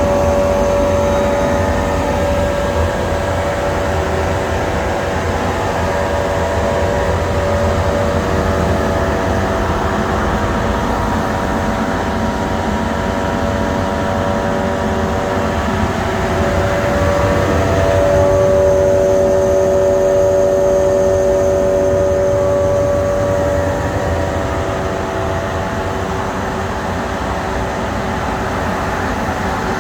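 10-horsepower industrial dust collector running steadily: a constant motor-and-blower hum with a whine of several steady tones that shifts slightly in pitch about two-thirds of the way through.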